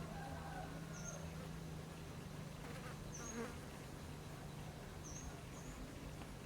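A steady low buzz, with short high chirps about every two seconds.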